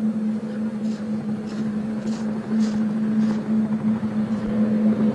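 Tandem-rotor military helicopter hovering low, its turbines and rotors giving a steady low hum over a rushing noise, with a pulsing whoosh of the blades in the middle.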